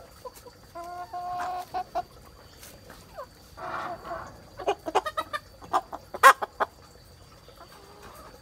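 A flock of chickens clucking and calling: a drawn-out call about a second in, then a run of short, sharp clucks between about five and seven seconds, the loudest just after six seconds.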